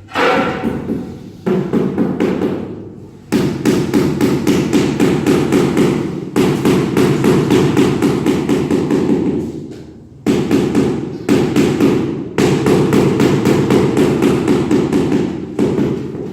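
Rapid repeated hammering, about five strikes a second, in several runs of a few seconds each with short breaks between them.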